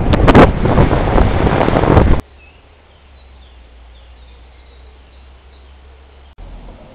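Loud wind buffeting the microphone for about two seconds, cutting off suddenly. Then a quiet stretch with faint bird chirps.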